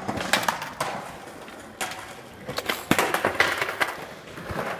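A run of sharp clicks and knocks with scraping clatter in between, the loudest single knock about three seconds in.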